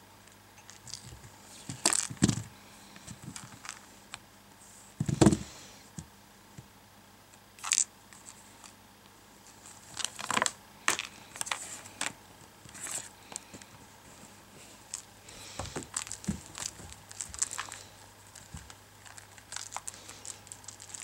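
A pet cat playing, clawing and pawing at things: irregular scratchy rustles and crinkles, with a duller thump about five seconds in.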